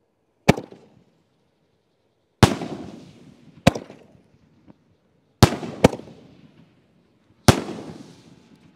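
Neon aerial firework shells going off: six loud, sharp bangs a second or two apart, two of them in quick succession past the middle. Each bang trails off in an echoing rumble.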